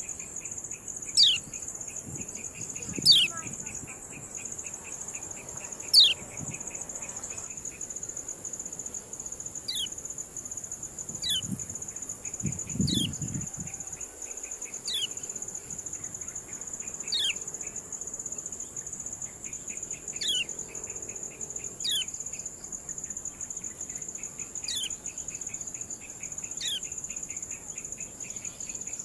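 Kecial kuning giving its 'ciak' call: short, sharp notes that sweep quickly down in pitch, repeated about every one and a half to two seconds. Under it runs a steady high-pitched insect-like hum, with stretches of fast ticking chirps.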